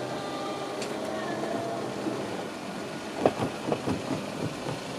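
An electric train running with a faint whine that slides in pitch, then several sharp knocks in quick succession about three to four and a half seconds in.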